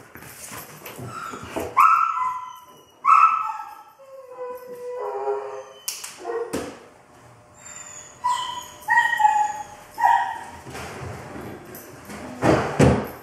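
Young Belgian Malinois giving short, high-pitched yips and whines, a few at a time. There are a couple of sharp knocks about six seconds in, and a burst of noise near the end.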